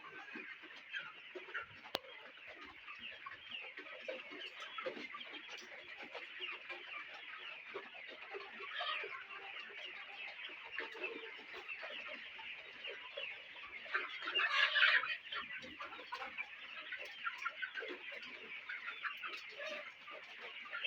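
A flock of Lohmann Brown and Lohmann Black laying hens clucking and chattering without a break, many birds calling over one another, with one louder call from a single bird about two-thirds of the way through.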